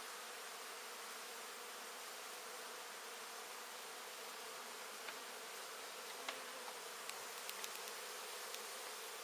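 Steady buzzing hum of a large honey bee colony on an exposed comb, with a few faint clicks from about five seconds in.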